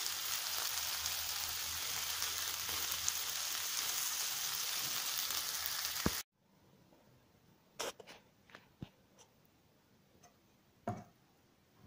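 Bitter melon and potato frying in oil in a pan: a steady sizzle that cuts off suddenly about six seconds in. After that it is quiet apart from a few light knocks.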